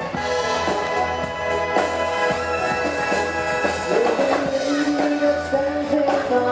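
A navy band playing live music, sustained pitched notes over drum strikes.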